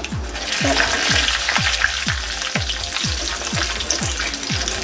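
Tempering spices (fenugreek seeds, urad and chana dal) frying in hot oil with dried red chillies in a wok, sizzling loudly from just after the start as a wooden spatula stirs them. Under it runs background music with a steady low beat, about four a second.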